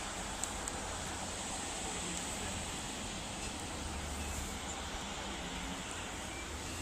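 Steady outdoor background noise, an even hiss with no clear single source, and two faint clicks about half a second in.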